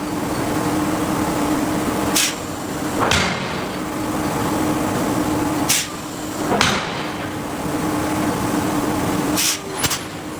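Hydraulic forging hammer striking hot steel: sharp blows coming in pairs, about three pairs in all, over a steady machine hum.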